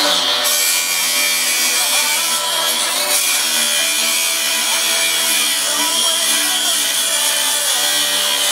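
Angle grinder running steadily as it cuts metal, a dense high-pitched grinding hiss.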